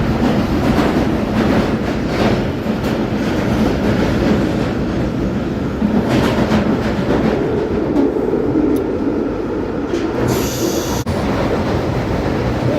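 London Underground Northern line train running through a deep-level tube tunnel: a steady loud rumble with repeated knocks from the wheels on the rails. About ten seconds in there is a brief high-pitched wheel squeal.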